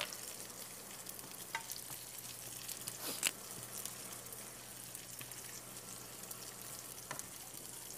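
Food frying in oil in a frying pan, with a steady sizzle and a few sharp clicks, the loudest about three seconds in.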